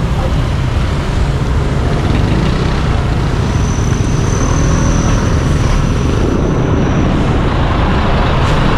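Steady low rumble of road-vehicle noise, engine and tyres, with a faint thin high whine from about three to seven seconds in.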